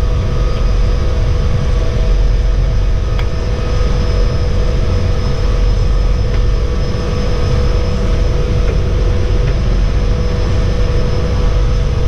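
Floatplane's propeller engine running steadily as it taxis on the water: a constant drone with a low rumble and a held whine.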